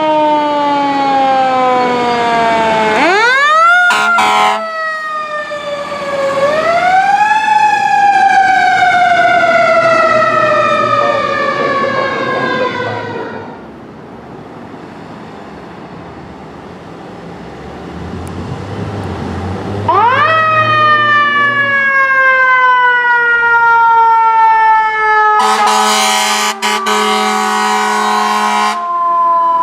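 Fire engine siren winding up quickly and coasting down in long, slowly falling wails, three times, dying away briefly midway. A short air horn blast sounds about four seconds in, and a longer steady air horn blast of about three seconds sounds near the end.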